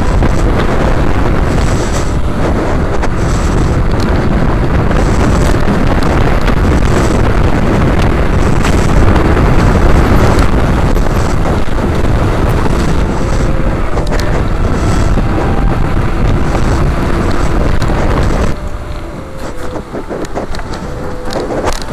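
Wind buffeting the microphone of a camera on a mountain bike descending fast on a wet road: a loud, steady rumble that eases off about eighteen seconds in.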